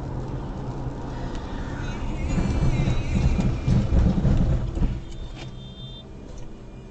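Car driving on a wet highway, heard from inside the cabin: a steady low engine and road drone that swells into a louder rumble from about two to five seconds in, then eases.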